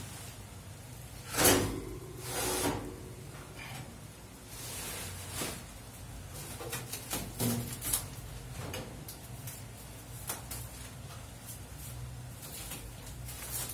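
Wire grates and parts of a metal charcoal grill knocking and rattling as they are lifted and handled, with plastic wrap rustling; the loudest clank comes about a second and a half in.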